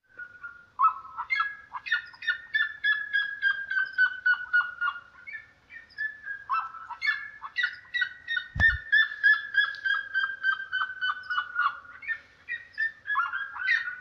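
Red-legged seriema calling: long series of loud, rapidly repeated notes, about four a second, each series slowly falling in pitch, two full series with a third starting near the end. A single low thump a little past halfway.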